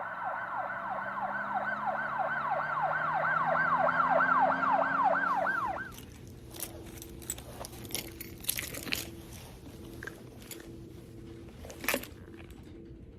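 Police-style yelp siren, a fast rising wail repeating about three to four times a second, growing louder and then cutting off suddenly near the middle. Scattered faint clicks and knocks follow.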